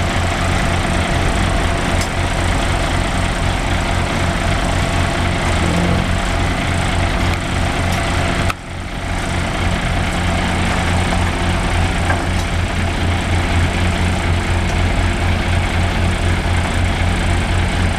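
Six-cylinder diesel engine of a 1992 International 4900 bucket truck running steadily at idle, with an even low pulse, while it drives the aerial boom's hydraulics as the boom raises and extends. The level dips briefly about halfway through.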